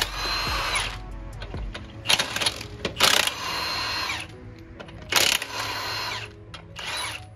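Cordless impact wrench with a 22 mm socket running in several short bursts of about a second each as it spins off the truck's chrome-sleeved lug nuts.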